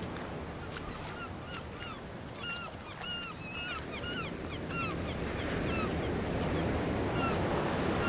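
Small waves washing on a beach, growing louder near the end. Over them a bird gives a rapid series of short, arched calls, about two a second, through the middle.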